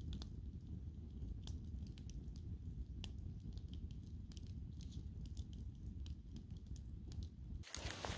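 Campfire burning: scattered small crackles and pops over a low steady rumble, which cuts off near the end with a brief louder noise.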